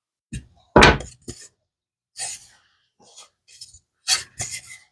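A man briefly clears his throat about a second in, then a soft breath and a few faint short clicks and taps from handling at the workbench.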